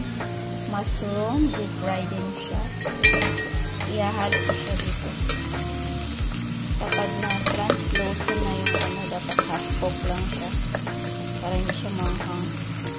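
Green peppers and onions sizzling in oil in a non-stick pan, stirred with a wooden spatula that scrapes and knocks against the pan at irregular moments.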